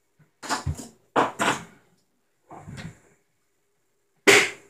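Fidget spinners being handled and stacked on a countertop: about five short clatters and knocks, the loudest near the end.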